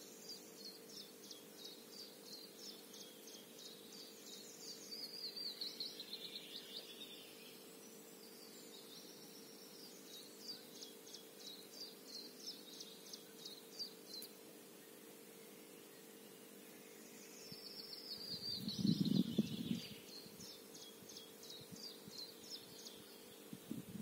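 Songbirds singing: quick series of high repeated notes, two of them running down into a falling flourish. A brief low rumble about three-quarters of the way through is the loudest sound, over a faint steady hum.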